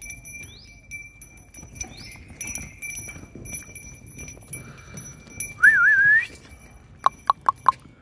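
Birds calling: a few faint rising chirps, then a short warbling whistle about six seconds in, the loudest sound, and four quick sharp chirps near the end.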